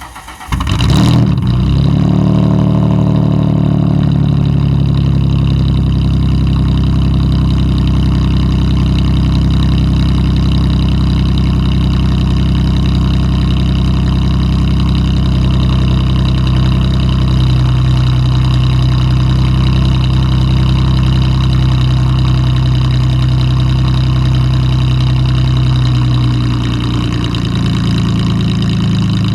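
Ford Mustang V6 with dual exhaust and an exhaust leak cold-starting: the starter cranks briefly, the engine catches about a second in, then idles steadily and loudly. The idle drops slightly near the end as the cold fast idle settles.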